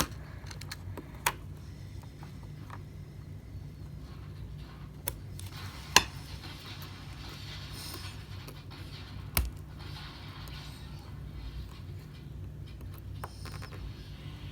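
A few sharp clicks and clinks of small hard objects being handled and set down, the loudest about six seconds in and a double one near nine and a half seconds, over a steady low hum.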